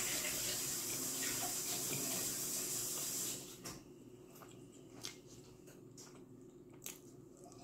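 Steady rushing hiss like water running from a tap, which cuts off abruptly about three seconds in. Afterwards only faint background with a few small clicks and smacks from handling and eating pizza.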